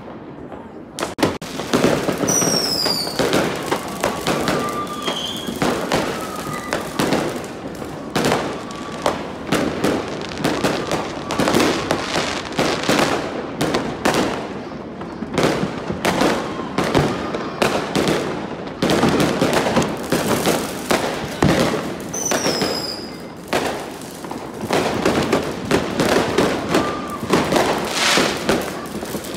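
Fireworks and firecrackers going off in rapid, overlapping succession, a continuous barrage of bangs and crackles. Twice a whistling firework screams with a falling pitch.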